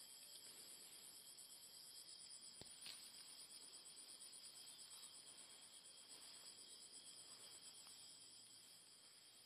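Faint, steady high trilling of night insects, with one faint click about three seconds in.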